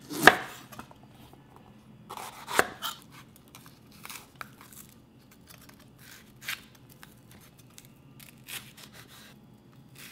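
Chef's knife cutting through a red bell pepper onto a wooden cutting board: about five separate knocks of the blade on the board, roughly two seconds apart, the first two loudest, with faint slicing and scraping between.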